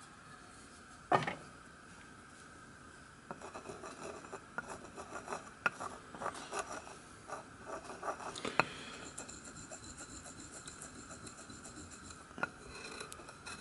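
A tool scraping and stirring fine white abrasive powder into lapping paste on a wooden board. A single knock comes about a second in, then a run of quick scratchy scrapes from about three seconds in that thin out after about nine seconds.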